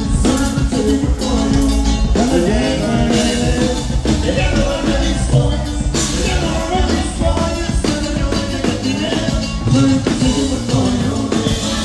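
Norteño band playing a song live, with an accordion-led melody over drum kit and bass.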